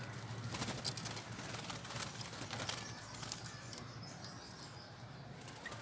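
Caged Javan mynas and sooty-headed bulbuls fluttering, with a run of quick wing flaps in the first few seconds, then quieter, and a faint short chirp near the end.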